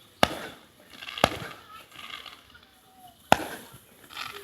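Fireworks going off: three sharp bangs, the first two about a second apart and the third two seconds later, each trailing off briefly.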